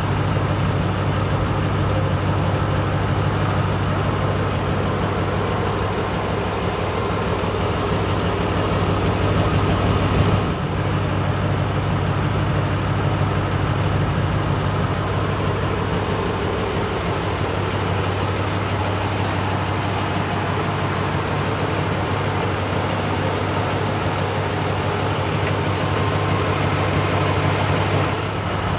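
Supercharged V8 of a 2005 Saleen S281 Mustang idling steadily.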